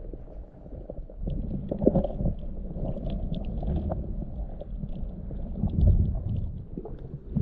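Muffled underwater sound from a camera held below the surface: a low churning rumble of moving water that swells about six seconds in, with faint scattered clicks and crackles above it.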